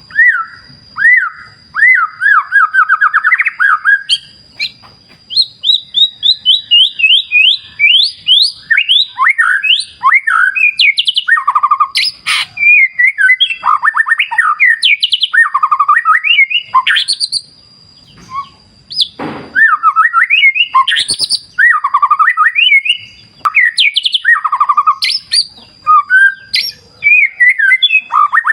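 White-rumped shama (murai batu) singing a loud, varied song of fast trills, rising sweeping notes and rapid chatter, broken by short pauses.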